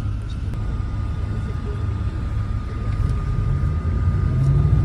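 Steady low rumble of a motor vehicle, with a faint high whine held throughout.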